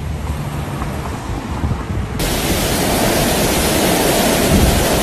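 Low traffic rumble from a city street. About two seconds in it cuts sharply to torrential rain pouring down, a dense, steady hiss.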